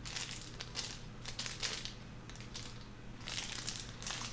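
Thin plastic bag crinkling around a small VGA-to-DVI adapter as it is handled and put down. The rustling comes in two spells, one at the start and one near the end, with a quieter stretch between.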